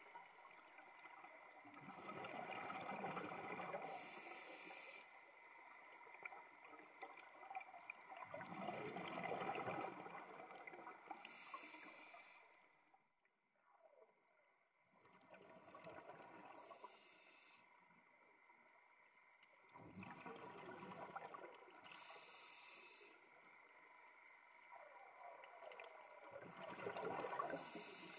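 Scuba diver breathing through a regulator underwater: a bubbly gurgle on each exhale, about every six seconds, each followed by a short hissing inhale.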